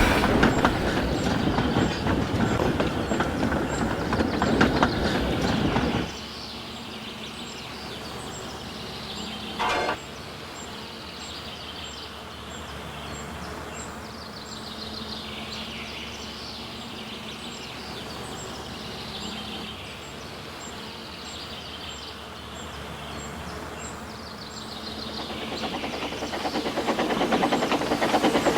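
Dubbed-in train sound effect: a loud moving train for about six seconds that cuts off suddenly to a quieter running sound with a steady hum and repeated high falling tones. A short loud burst comes about ten seconds in, and the sound builds louder again near the end.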